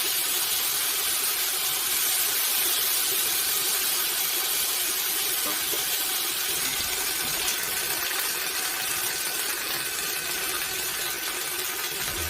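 A steady hiss, strongest in the high range, with a faint thin tone joining in about two-thirds of the way through.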